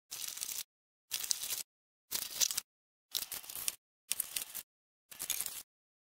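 Hands handling a cardboard box and its foam and plastic packing: rustling, crinkling and scraping in short snatches about half a second long, each cut off abruptly, roughly once a second.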